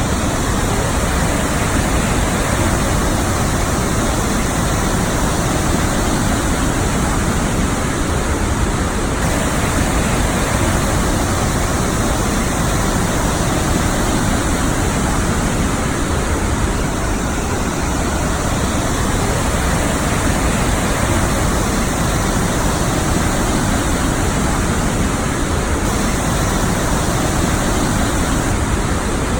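Devil's Throat, the largest cataract of Iguazú Falls, pouring down: a loud, steady rush of falling water with no break.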